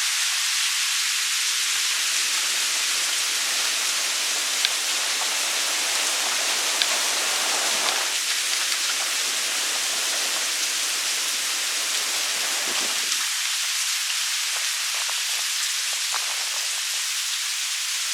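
Steady rain falling, an even hiss with scattered sharper drop ticks. A deeper layer under the hiss drops away about two-thirds of the way through.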